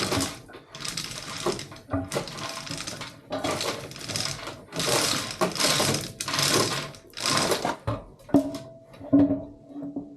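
A power tool run in short bursts, about one a second, followed near the end by a few sharp metal clanks that ring briefly.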